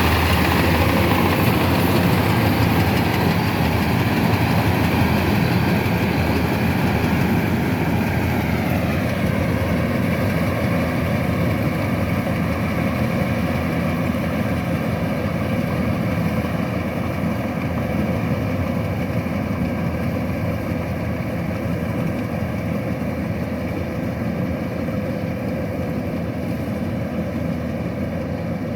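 Kubota DC-105X combine harvester running steadily, its diesel engine and machinery working. About nine seconds in the engine's pitch drops and settles lower, and the sound slowly grows quieter.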